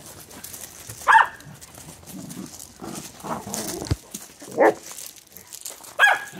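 A dog barking: three short single barks, spaced a few seconds apart.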